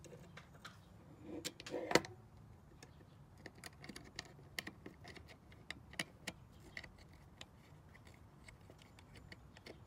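Small irregular metallic clicks and ticks of a hex key turning small screws on a Raspberry Pi amplifier board, with one louder knock about two seconds in.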